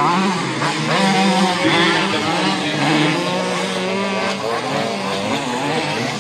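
Several tuned 50cc two-stroke racing moped engines running at high revs together, their overlapping pitches rising and falling as the riders throttle on and off.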